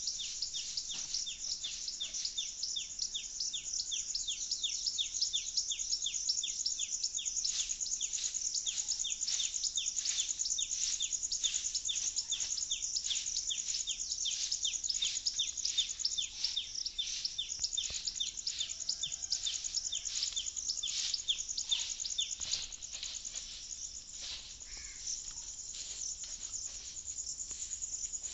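Insects chirping in a steady rhythm of about three short high-pitched pulses a second over a continuous high buzz, the pulses thinning out for a few seconds near the end.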